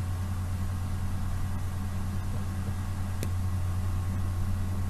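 A steady low hum with an even hiss, and a single short click about three seconds in.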